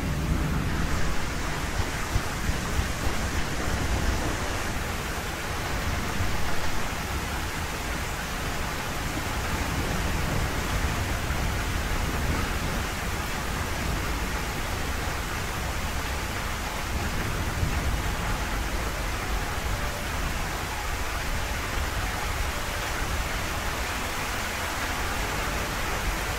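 Heavy rain pouring steadily in a thunderstorm, with low rumbling underneath.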